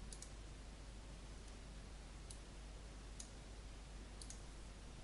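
Faint computer mouse button clicks: a double click near the start, single clicks about two and three seconds in, and another double click just after four seconds, over a steady low hum and hiss.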